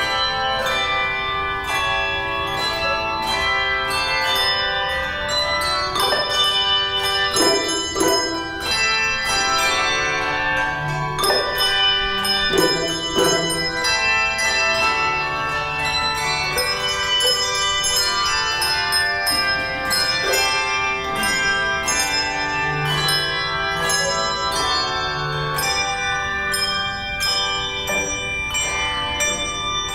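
Handbell choir ringing a piece: many bells struck together in chords and runs, their notes overlapping and ringing on.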